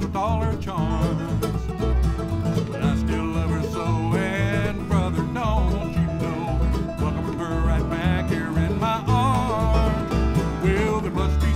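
A bluegrass band playing: banjo, mandolin, acoustic guitar and fiddle over upright bass notes on the beat.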